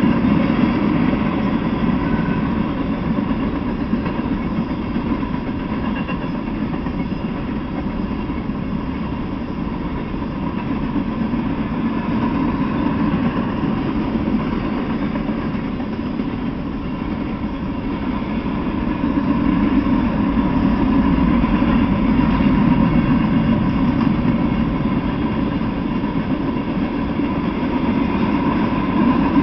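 Freight train cars rolling past on the rails: a steady rumble of wheels on track that swells a little in the second half, with a faint steady whine over it.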